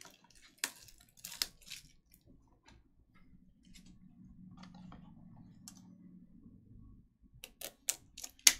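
Scattered sharp clicks and crackles from small cardboard card boxes and their plastic shrink wrap being handled. Near the end comes a quick run of louder clicks as a yellow utility knife is worked at a box's seal.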